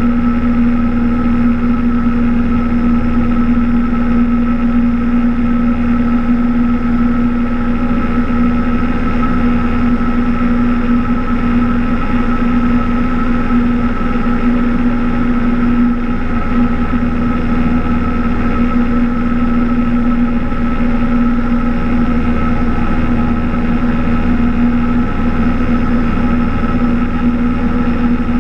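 Cessna 172's piston engine and propeller droning steadily in flight, heard from inside the cabin, with a constant low hum and an unchanging pitch.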